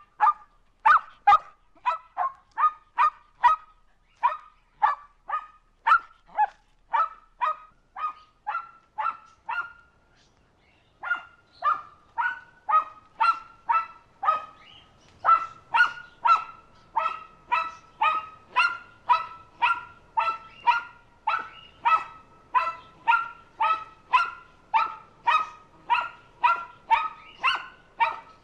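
A dog barking over and over in a steady rhythm, nearly two short barks a second, with a pause of about a second a third of the way through.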